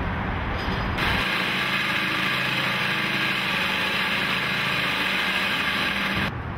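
Construction machinery running: a steady engine drone, joined about a second in by a loud, even hiss that stops suddenly near the end.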